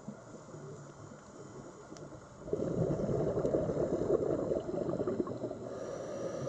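Scuba diver's exhaled breath bubbling out of the regulator, heard underwater: a low gurgling wash that starts about two and a half seconds in and runs for about three seconds, then eases off.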